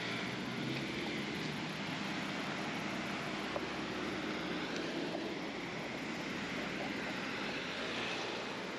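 A steady engine drone with a low hum, holding at an even level over a continuous wash of outdoor noise.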